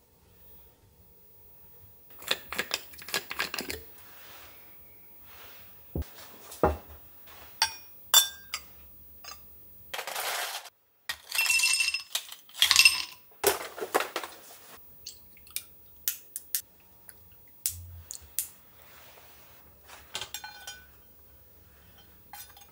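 Ice cubes scooped from a plastic tub and dropped into a glass, a run of sharp glassy clinks and rattles that is loudest and densest in the middle. After that come lighter taps and clicks of dishes and of madeleines being lifted off a wire rack onto a plate.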